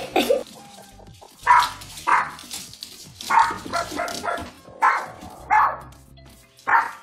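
Small dog barking repeatedly: about eight short, sharp barks at uneven intervals, over background music.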